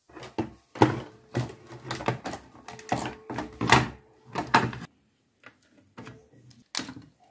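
Plastic clicks, knocks and rattles of a toy crane's housing and motor gearbox being handled and pulled apart by hand. They come thick and fast for the first five seconds, then thin out to a few quieter clicks.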